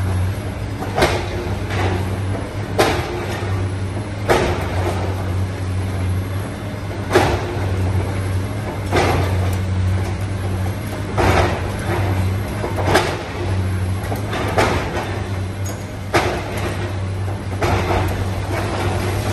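Komatsu hydraulic excavator's diesel engine running steadily under load, with sharp crashes every second or two as the machine breaks into the concrete and brick of the building being demolished.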